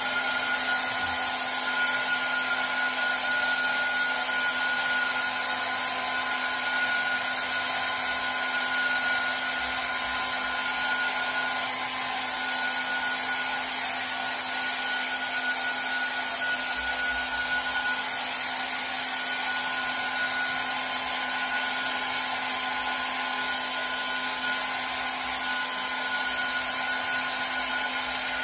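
Handheld hair dryer running steadily, a constant rush of air with a steady whine over it.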